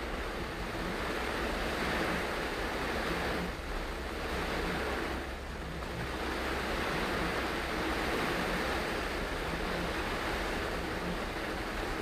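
Heavy tropical rain on a moving car's roof and windscreen, heard from inside the cabin as a steady dense hiss mixed with tyre noise on the flooded road. It eases briefly twice, a few seconds in.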